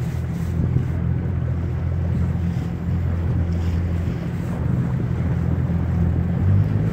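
Small boat's outboard motor running with a steady low hum, its note shifting near the end, under wind and sea noise.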